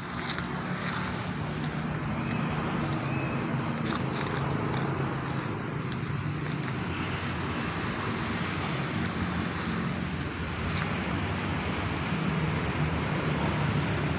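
Steady outdoor traffic noise: a low, even engine hum under a broad hiss.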